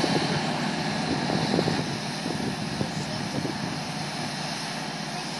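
Deutz-Fahr 6095 HTS combine harvester running steadily while standing in place.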